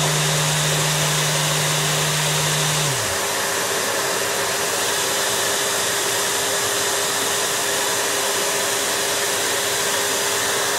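HUBERTH RP207501 industrial vacuum cleaner running steadily at medium power: a loud, even rushing with a steady hum. A deeper hum alongside it winds down and stops about three seconds in.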